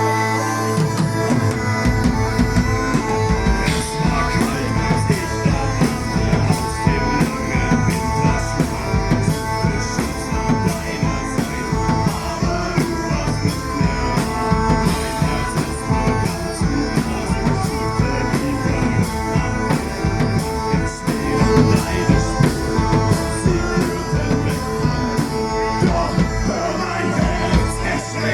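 Live band playing rock music with drums and guitar. It opens on held steady tones, and the drums come in about a second in, keeping a dense, steady beat.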